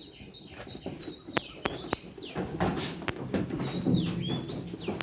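A bird whistling the same rising-and-falling phrase twice, high and thin. A few sharp clicks and a low rumble of farmyard noise sit underneath.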